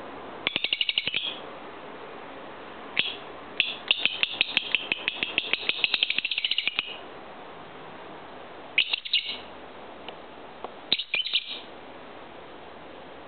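Lovebird chattering in bursts of rapid, high chirps: a short burst near the start, a long run of fast chirps for about three seconds in the middle, and two more short bursts toward the end.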